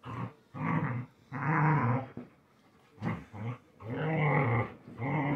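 Two dogs growling as they play-fight, in a run of about six rough growls, the longest and loudest about a second and a half in and about four seconds in.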